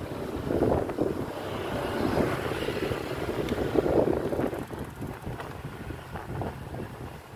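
Wind buffeting the microphone in irregular gusts, over the low running of motor scooters.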